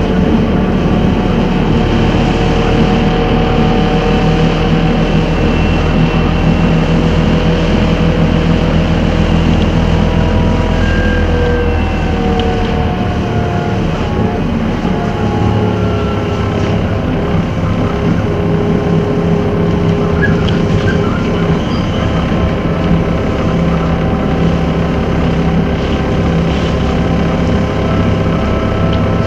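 Trolleybus running, its electric traction equipment giving several thin whining tones that slowly drift in pitch over a steady low hum. The hum changes character about halfway through.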